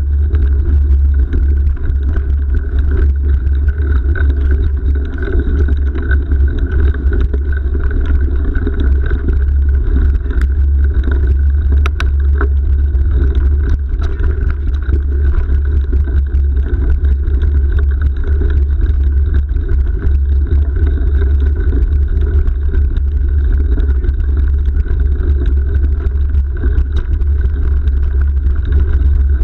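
Wind buffeting the microphone of a bike-mounted camera, over the rumble of mountain bike tyres rolling on a dirt track. It runs as a steady loud noise, with a few sharp rattling clicks as the bike goes over bumps.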